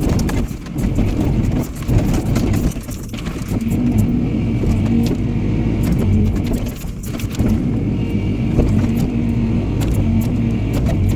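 Excavator engine running steadily under hydraulic load while its log grapple works, with frequent short knocks and clunks.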